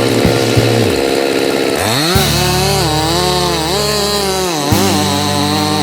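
Chainsaw running, revving up about two seconds in, then holding a high, wavering pitch, with a brief drop about three-quarters of the way through.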